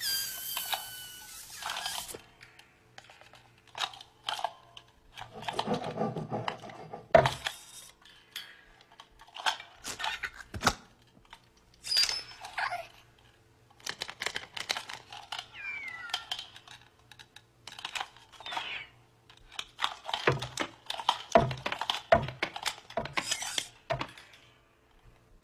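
Cartoon sound effects for animated desk lamps: irregular metallic clacks and taps as the small lamp's base hops, mixed with short squeaky, creaking glides of the spring-jointed lamp arms.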